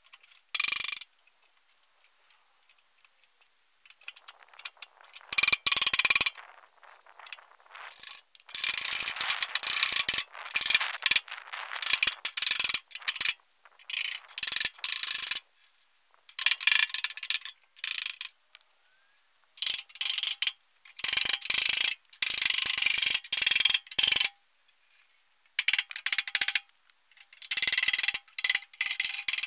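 Hammer blows on sheet steel, struck in quick runs separated by short pauses, the metal ringing after the strikes: straightening a steel panel on a YuMZ-6 tractor.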